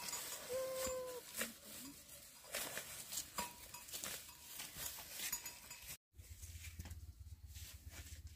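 Water buffalo pulling and chewing freshly cut grass, a steady run of short crunching clicks, with one short steady animal call about half a second in. After a cut near six seconds, a low steady hum.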